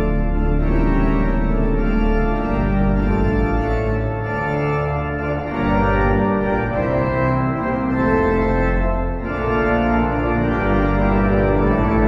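A Harrison & Harrison pipe organ's great division plays a loud full chorus of sustained, changing chords. Its three great reeds, on 12-inch wind pressure, are brought in one after another on top of the principal chorus and mixture.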